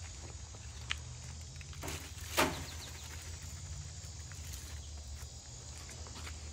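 Foil-wrapped ribs being set on a charcoal grill's upper rack: a light click about a second in and a sharper knock about two and a half seconds in, over a steady insect drone and a low hum.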